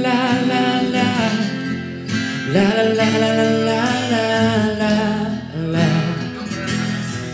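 A man singing into a microphone, accompanied by an acoustic guitar, in a live acoustic duo performance of a pop ballad.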